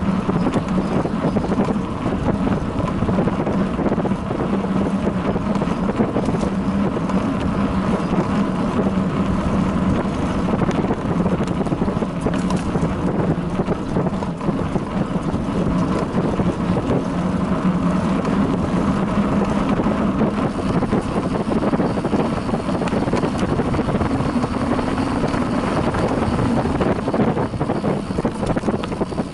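Wind buffeting the microphone of a bicycle-mounted action camera at around 20 to 27 km/h, over a steady rumble of tyres and small rattles from riding a bumpy dirt forest track.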